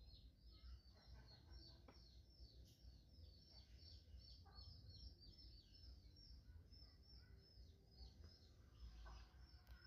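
Faint bird chirping: a steady run of short, high, falling chirps, about three a second, over a low background rumble.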